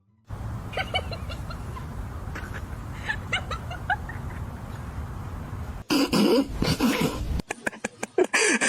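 A dog giving a string of short, high yips over a steady low hum. Then a sudden cut to louder, rougher noise with scuffling.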